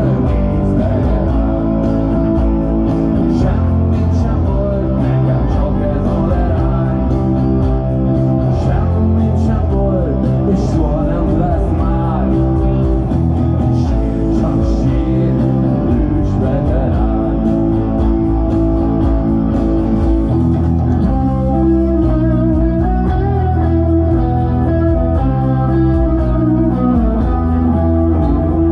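Live rock band playing loud through an outdoor PA, led by electric guitar over bass and drums.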